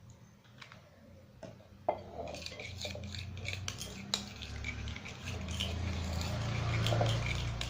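A utensil stirring and scraping through a thick glue-and-moisturizer slime mixture in a container, with small clicks against its sides. It starts about two seconds in and grows louder toward the end.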